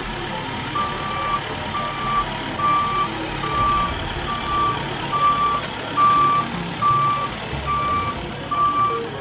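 Backup alarm on a compact tractor carrying an infrared asphalt heater, beeping steadily at a little more than one beep a second as the tractor reverses, over its low engine rumble.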